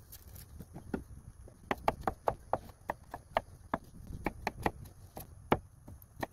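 Kitchen knife chopping an onion on a wooden cutting board: sharp knife-on-wood knocks, a few at first, then a quick run of about two to three strikes a second from about two seconds in.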